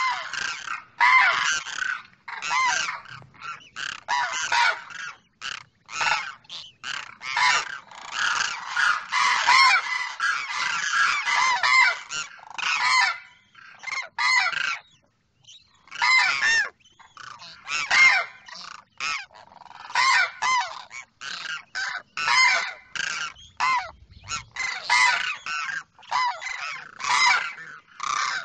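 A pair of demoiselle cranes calling: short, pitched calls repeated in quick runs, often overlapping, with one brief pause about halfway through.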